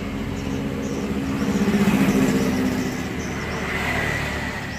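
A motor vehicle engine passing by, growing louder to a peak about two seconds in and then fading.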